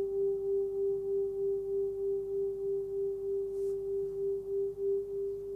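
A 13 cm Tibetan singing bowl sounding one steady tone near 396 Hz (G), with faint higher overtones. Its sound pulses about three times a second and fades a little toward the end.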